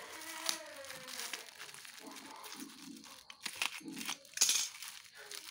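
Black plastic bag and bubble wrap crinkling and rustling as a package is unwrapped by hand, with a louder, sharp rip of plastic a little over four seconds in.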